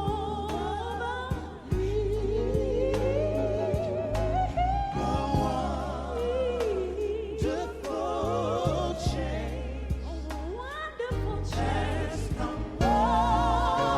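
Gospel music: a solo singer with wavering, sliding notes over a steady bass line and a regular beat.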